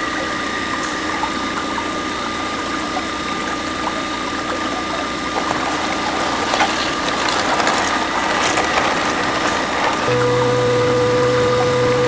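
Small electric motor of a homemade toy pump or drilling rig running steadily with a high whine and mechanical rattle. About ten seconds in, a second, lower hum joins in.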